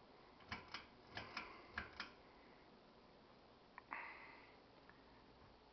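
Ceiling fan speed switch being clicked through to low: six light clicks in three close pairs. Just before four seconds in comes a single tick and a brief hiss.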